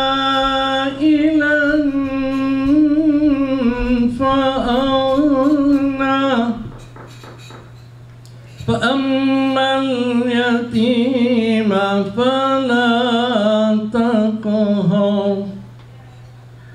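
A man's voice chanting Quranic recitation in the melodic tajweed style, with long held notes and ornamented wavering runs. He breaks for breath about six and a half seconds in and again near the end. A steady low electrical hum runs underneath.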